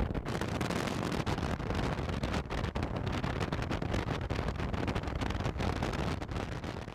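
Wind buffeting the microphone of a camera on a motorcycle cruising at road speed, with the bike's running and road noise underneath, fading near the end.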